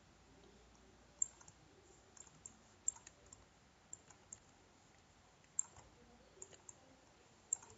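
Faint computer mouse clicks, about a dozen, sharp and irregularly spaced, over low room hiss.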